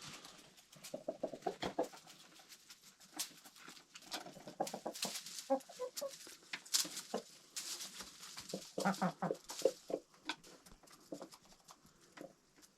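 Domestic hens and a rooster clucking in short, scattered calls, with frequent sharp taps through them.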